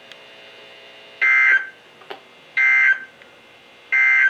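Weather alert radio beeping: three short, identical electronic beeps about 1.3 seconds apart, over a faint steady receiver hum.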